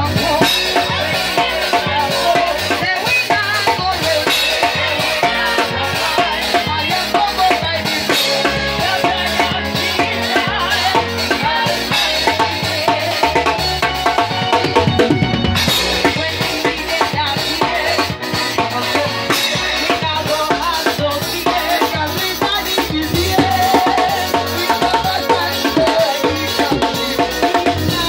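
Live band playing loudly, led by a drum kit with snare and bass drum hitting steadily through the music.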